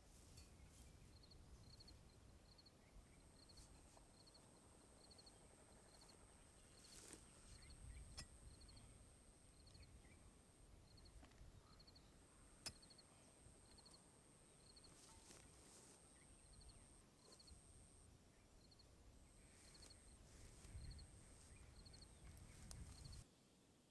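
Faint outdoor ambience: an insect chirping in short high pulses about every 0.7 seconds, with a thin, steady, high buzz that comes and goes and a low rumble underneath.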